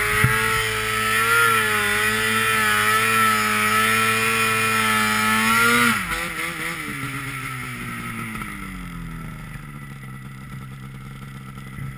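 Snowmobile engine held at high revs under load in deep powder, the pitch wavering with the throttle; about halfway through the throttle is let off and the revs fall away gradually to a low, steady idle.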